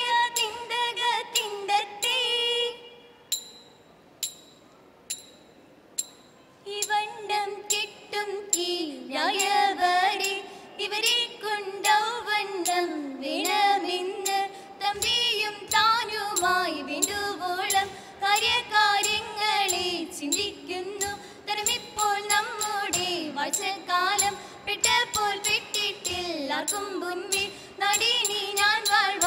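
Female voices singing a Margam Kali song in unison, kept in time by sharp rhythmic beats. About three seconds in, the singing stops for roughly four seconds and only a few beats are heard. The singing then resumes.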